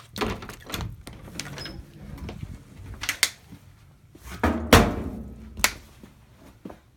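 An interior door being opened and a run of knocks and thumps as things are handled, the loudest thump a little under five seconds in.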